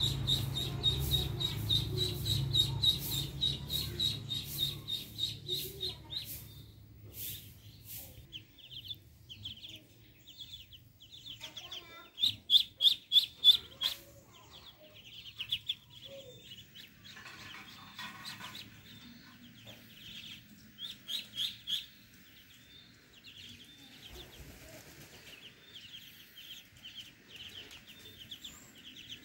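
Muscovy ducklings peeping, a quick run of high, thin peeps that comes and goes in flurries, loudest about halfway through. A low rumble sits under the first few seconds.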